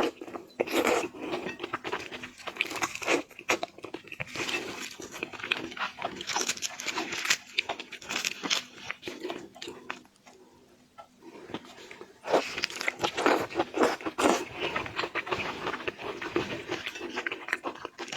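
Close-up eating sounds: a person crunching and chewing food with many crisp bites, easing off for a couple of seconds about ten seconds in, then picking up again.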